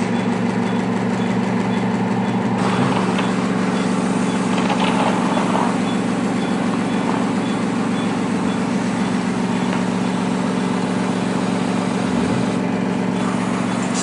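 Steady mechanical hum of operating-room equipment running, a low even drone with no change in pitch.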